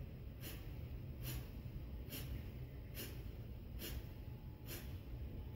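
Kapalbhati pranayama breathing: a woman's sharp, forceful exhalations through the nose. There are seven short puffs, evenly spaced at a little under one a second.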